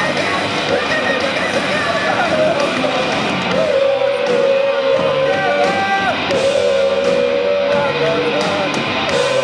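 Live punk band playing loud: electric guitars and drums, with the singer yelling long held notes into the microphone.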